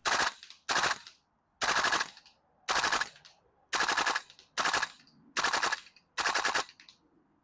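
VFC M16A2 Carbine gas blowback airsoft rifle firing eight short full-auto bursts, about one a second. Each burst is a rapid string of sharp cracks.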